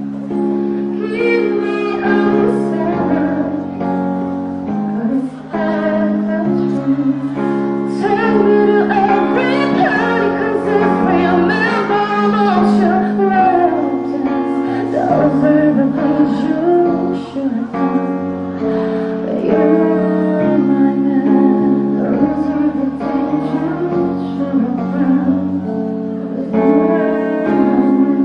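Electronic keyboard playing long, sustained chords, with a female voice singing a melody over them.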